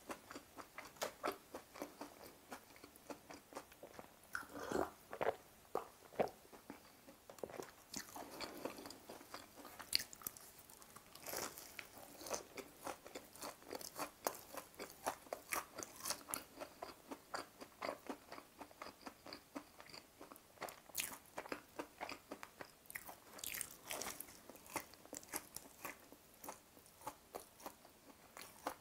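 Close-miked crunching bites and chewing of a thin, crisp-fried chicken cutlet (Lotteria Z-pie). It is a quick, irregular run of sharp crackles, with a few louder crunches scattered through.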